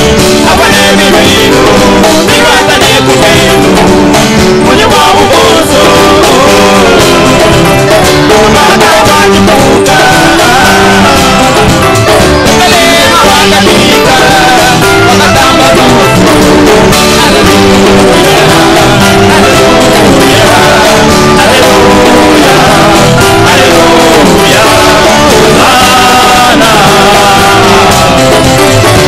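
A group of men singing together into microphones, with live band backing.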